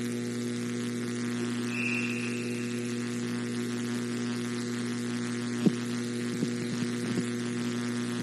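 Steady electrical mains hum with a buzzy series of overtones. A brief high tone sounds about two seconds in, and a few short knocks come in the second half, the first the loudest.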